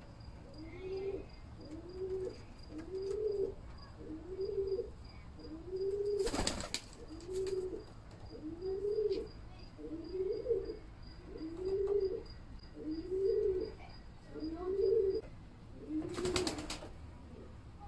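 Kamagar pigeons cooing in a steady series, about one coo a second, each a short note that rises and falls. Twice, about six seconds in and near the end, there is a brief burst of wing flapping.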